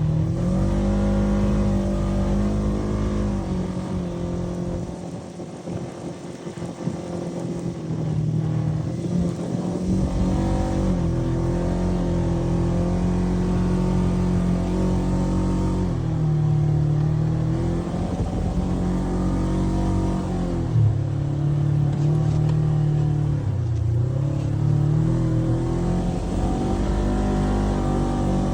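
Polaris RZR 900 side-by-side's engine running under throttle, its pitch rising and falling as the revs change. It eases off and goes quieter about five seconds in, then picks up again and keeps revving up and down.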